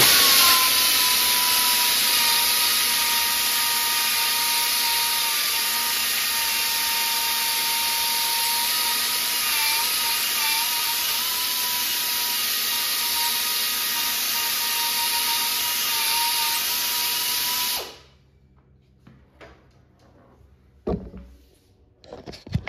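Small Harbor Freight air buffer with a foam pad running, buffing compound along the edge of a painted body panel: a loud hiss of air with a steady whine that cuts off suddenly near the end. Two short knocks follow.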